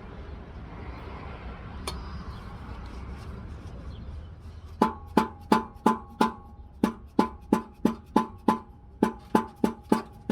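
A hammer repeatedly striking a ringing metal part, starting about five seconds in: about three blows a second, in runs of about five with short pauses between.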